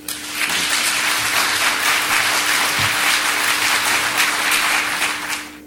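Audience applauding: many people clapping steadily, fading away near the end.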